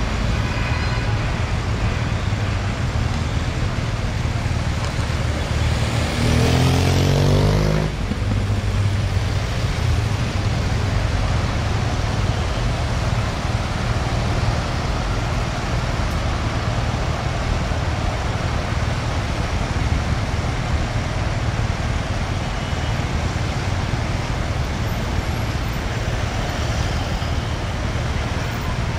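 Road traffic noise as a motorcade of cars drives past: a steady mix of engine hum and tyre noise. About six seconds in, an engine revs up, rising in pitch, and cuts off suddenly a couple of seconds later.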